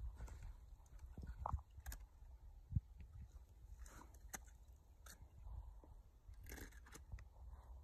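Faint, scattered crunches, scrapes and clicks of climbers' boots and crampons on snow and rock as they move down a fixed rope, over a steady low wind rumble on the microphone.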